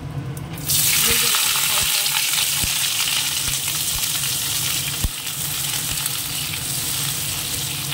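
Chopped onion, tomato and capsicum hitting hot oil in a kadai, sizzling loudly from just under a second in and continuing as they fry, with occasional taps and scrapes of a metal spatula stirring them against the pan.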